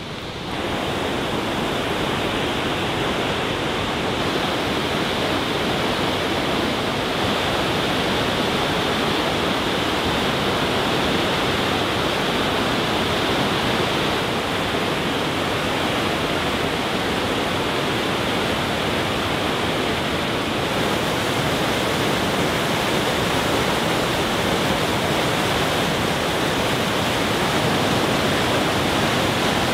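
Loud, steady rush of whitewater pouring over the rocks of the Russian River Falls.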